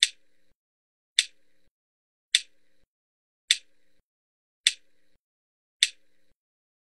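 Six sharp, evenly spaced clicks from a tasbih counter, about one every 1.2 seconds, one for each count of the dhikr. A faint low hum follows each click.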